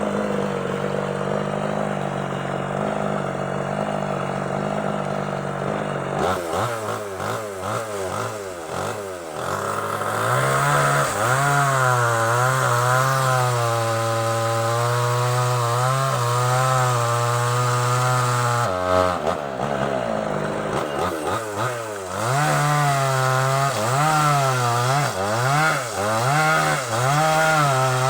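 Small two-stroke chainsaw running steadily at low speed, then, about six seconds in, revving up and sawing through a sengon log, its engine pitch rising and falling under load. It drops back briefly about two-thirds of the way through, then revs up and cuts again.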